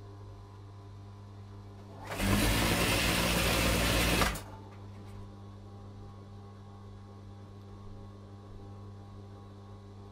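Industrial lockstitch sewing machine running for about two seconds, starting about two seconds in and then stopping, as it stitches a seam on a cushion cover. A steady low hum runs underneath.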